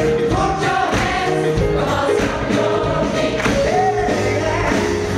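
Large gospel choir singing a song in several parts, accompanied by a live band with piano and drums.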